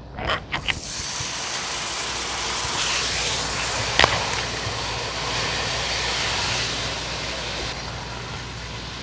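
Onion-and-spice masala sizzling steadily in hot oil in a pot after a little water has gone in to bhuno it, stirred with a silicone spatula. The sizzle sets in about a second in, there is a single sharp tap about four seconds in, and it eases a little near the end.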